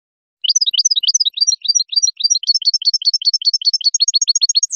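European goldfinch singing: a fast, unbroken run of bright, high chirping notes, about eight a second, ending in one downward-slurred note.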